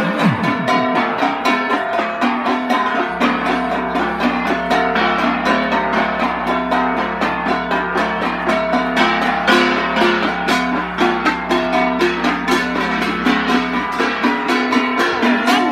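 Several hand-held gongs struck in a fast, steady interlocking rhythm, about five or six strokes a second, their different pitches ringing together.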